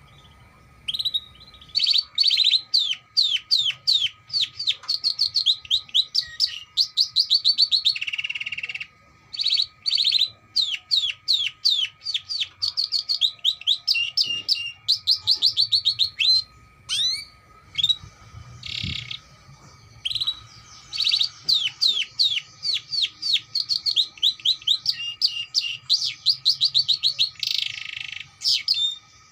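Domestic canary singing a long song of fast trills of repeated chirps, broken three times by a short buzzy roll.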